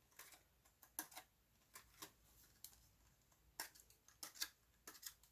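Faint, irregular clicks and paper crackles, a dozen or so over a few seconds: a pokey tool pushing small leftover shards out of a freshly die-cut sheet of foil paper.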